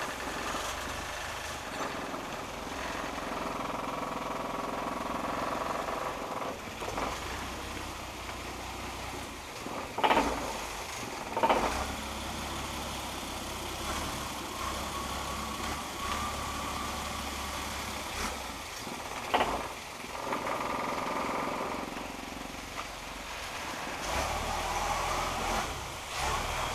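Long-tail boat engine running steadily as the boat cruises along a canal, with three brief loud knocks.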